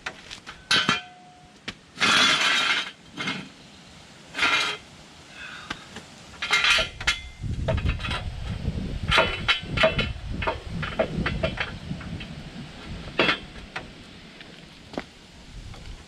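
Metal tools and parts clinking and clanking in a string of sharp knocks and short scrapes, with a low rumble underneath from about halfway through.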